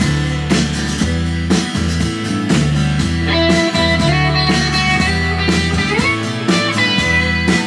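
Rock music: electric guitar over a band with drums, with steady low bass notes and a regular beat.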